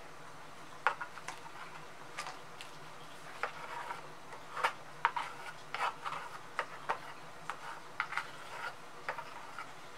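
A flat stir stick spreading thick acrylic paint across a canvas: irregular light taps and short scrapes, a dozen or so, over a faint steady hum.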